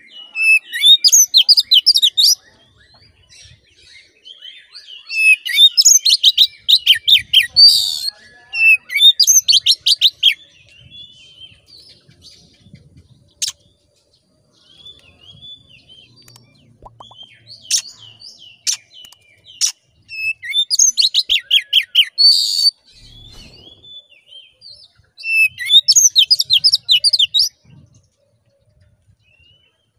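Oriental magpie-robin singing in five loud bursts of rapid, fast-repeated notes, each about two seconds long, with softer scattered notes in between. It is the vigorous song used as a lure to rouse other magpie-robins.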